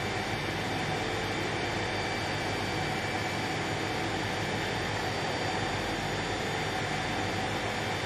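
Olive oil mill machinery running with a steady, even drone and hum while oil pours from the separator's spout.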